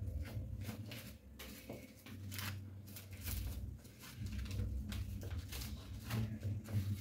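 Plastic cling film crinkling and crackling irregularly as it is stretched and pressed around the rim of a bowl, over a low steady hum.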